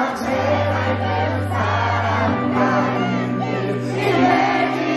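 A concert crowd singing the melody together over the live band's backing, many voices at once rather than one lead singer.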